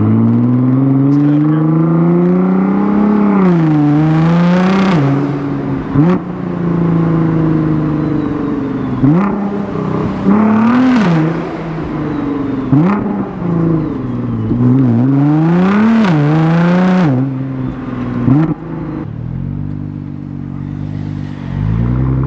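Nissan GT-R R35's twin-turbo VR38 V6, running through a non-catted midpipe, accelerating hard: the revs climb and fall abruptly again and again as the dual-clutch gearbox shifts, with a sharp crack at several of the shifts. It is loud.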